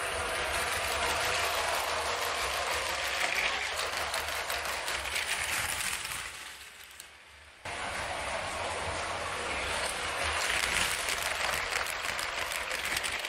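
Lego City passenger train running on plastic Lego track: a steady rattling clatter of small plastic wheels over the track joints and points. It falls away about six seconds in, then comes back suddenly a second and a half later as the train passes close again.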